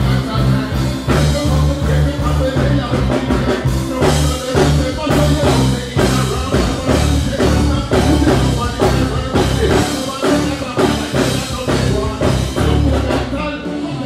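Live band playing a dancehall rhythm over a loud PA, with deep repeating bass notes and a steady drum beat, and a deejay's voice chanting over it.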